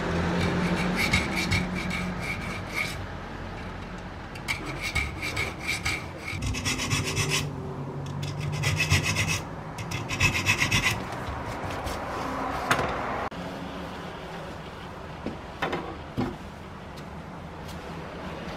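A hand file scraping along the steel teeth of a 1950s Disston keyhole saw blade held in a vise, cleaning up the teeth. It goes in several bursts of quick back-and-forth strokes, then stops about two-thirds of the way through, leaving a few light knocks.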